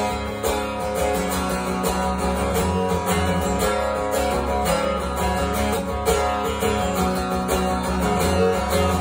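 Steel-string acoustic guitar strummed steadily, playing chords of an instrumental passage with no singing.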